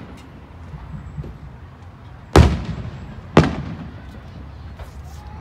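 Aerial fireworks: two loud shell bursts about a second apart, around two and a half seconds in, each trailing off in a rolling echo.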